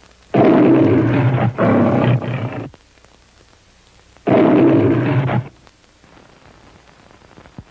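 The MGM studio logo lion roaring: three roars, the first two back to back, the last about a second and a half later.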